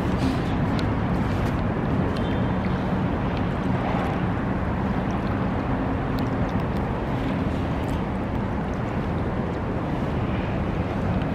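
Steady rumbling rush of wind on the microphone and the swollen river's moving water, with a faint engine-like hum underneath.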